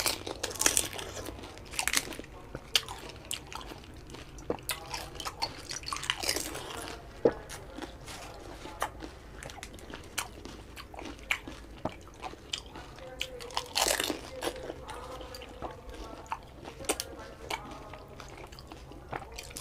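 Close-up eating of fuchka (panipuri): repeated crisp crunches as the hollow fried shells are bitten, with wet chewing in between.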